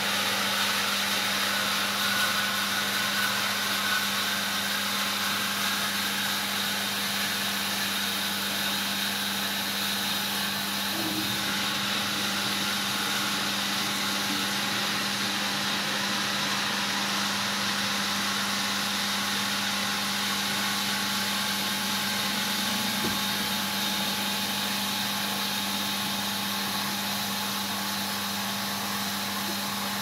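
Miele W5873 front-loading washing machine in its final spin, the drum turning fast: a steady low hum with a high whine above it.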